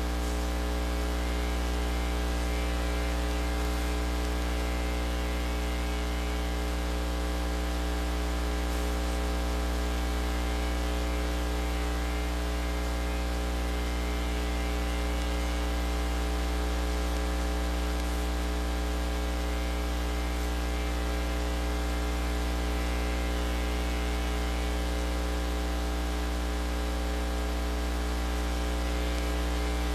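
Steady electrical mains hum with a dense stack of buzzy overtones, under a layer of hiss, unchanging.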